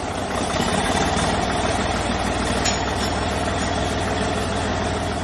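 Large diesel engine idling steadily, a low, even rumble.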